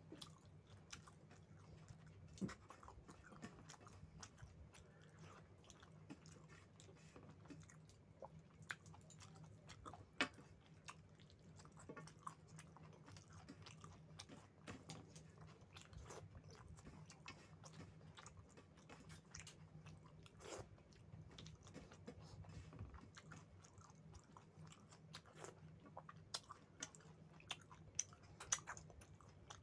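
Close-up chewing and mouth sounds of someone eating rice with chicken curry: many soft, irregular smacks and clicks, a few sharper ones, over a faint steady low hum.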